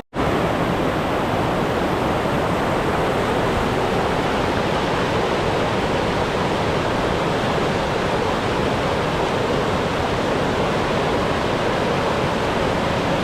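Steady, even rush of a waterfall, cutting in abruptly at the start.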